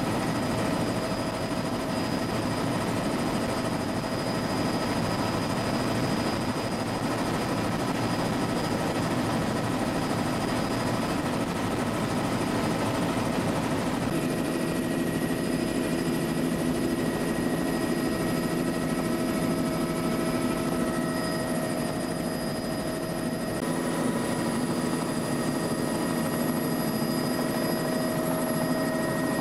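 Bell 206 JetRanger helicopter's turbine engine and rotors running in flight, heard from inside the cabin with the doors off: a steady, dense noise with a high whine over it. The mix of tones shifts about halfway through.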